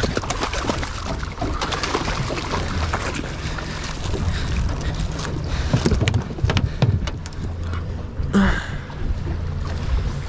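Small fishing boat's engine humming low under wind buffeting the microphone, with water splashing and many sharp knocks from waves on the hull. About eight seconds in there is a short, louder rush of water.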